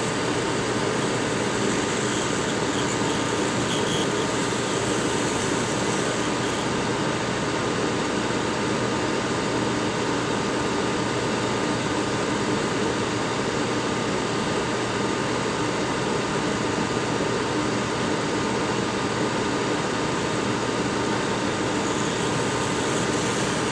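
Hot-air rework station blowing steadily on a circuit board, a constant fan and airflow hiss, heating the touch IC until the lead-free solder beneath it melts.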